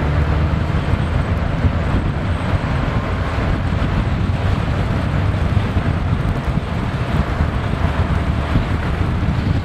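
Steady wind buffeting the microphone of a camera riding in an open pickup bed, mixed with the road and engine noise of the moving truck.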